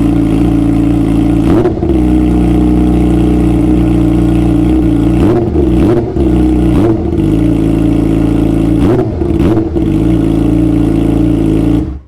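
Yamaha R6's inline-four engine idling through an Austin Racing carbon aftermarket exhaust, with several quick throttle blips that make the pitch rise and fall. The sound cuts off suddenly near the end.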